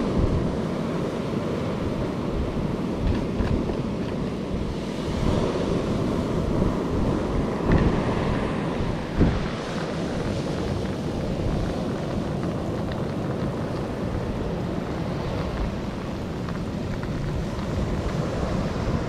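Wind buffeting the microphone over the steady wash of surf breaking on the beach, with a brief knock about nine seconds in.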